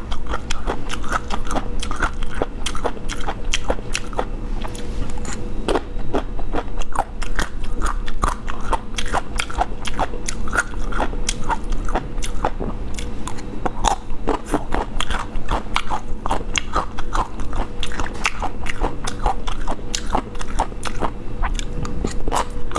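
A person chewing and biting crunchy food close to the microphone: a continuous run of crisp, rapid crunches.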